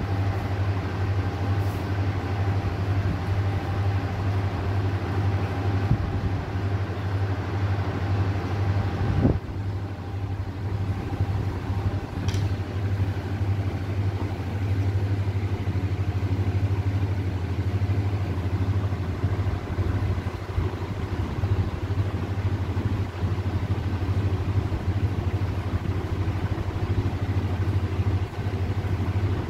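A steady low hum, like a running motor, with faint room noise above it and a single knock about nine seconds in.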